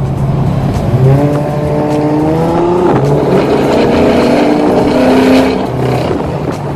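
A car engine accelerating hard: its pitch climbs, drops at a gear change about three seconds in, then climbs again before falling away near the end.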